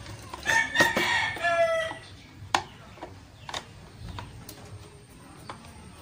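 A rooster crows once, starting about half a second in and lasting about a second and a half, ending on a lower falling note. A few sharp clicks follow as the fan housing is handled.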